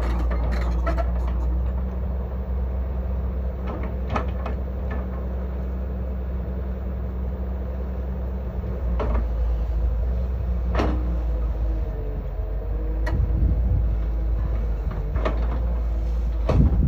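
Tracked hydraulic excavator's diesel engine running steadily under working load, with a hydraulic tone that rises and falls in the middle. Several sharp metal clanks come from the bucket and arm as it scrapes and digs soil, bunching together near the end.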